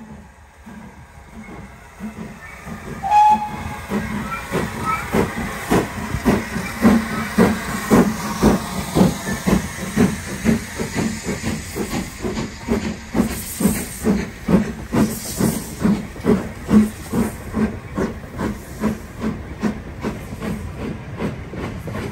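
GWR Castle class 4-6-0 steam locomotives pulling away under load, their exhausts chuffing in a regular beat of about two to three a second over a steady hiss of steam. The chuffs grow louder over the first few seconds, and a brief high note sounds about three seconds in.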